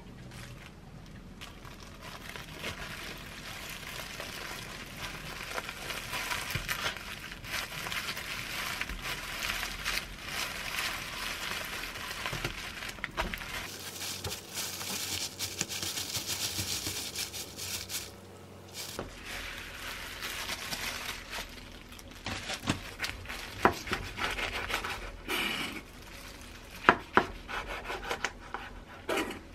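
Plastic gloves crinkling and a bamboo mat rustling as a gimbap roll is rolled and pressed tight for a long stretch. Near the end, a knife cuts through the roll with a few sharp knocks on the wooden board.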